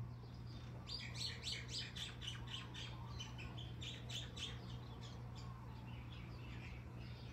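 A songbird chirping a quick run of short high notes for about four seconds, fading near the end, over a steady low hum.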